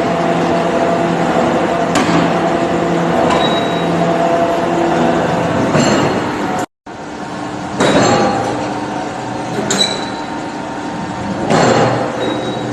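Bolt and nut hot forging machine running, a steady machine hum with a sharp metallic stroke and clink about every two seconds. The sound drops out for a moment about seven seconds in.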